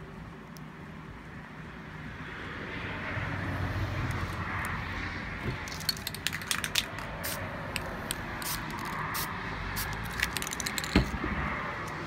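Aerosol spray paint can being shaken, its mixing ball rattling in quick irregular clicks through the second half, over a steady background hiss.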